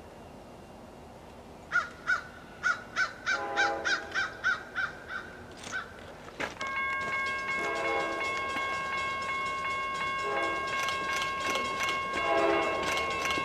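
Diesel freight locomotive bell ringing, about three strikes a second, starting about two seconds in. About halfway through, a multi-chime air horn comes in with a long steady chord that runs on, with shorter lower horn blasts sounding over it as the train approaches.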